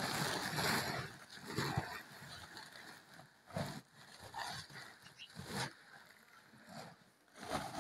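A plastic sheet rustling and crackling as it is opened and shaken out, with chopped green fodder spilling out of it into a manger, in a long rush at first and then several short separate bursts.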